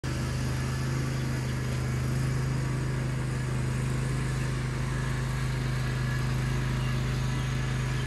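Engine of a remote-controlled riding lawn mower running steadily as it drives across the grass, one even, unchanging hum.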